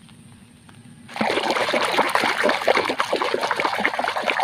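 A hand swishing a muddy plastic toy animal around in a plastic basin of soapy water: rapid, continuous splashing that starts about a second in.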